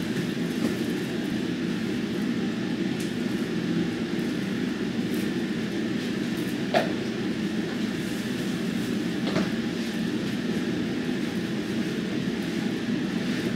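Steady low droning background noise, with a sharp click about seven seconds in and a softer one a little after nine seconds.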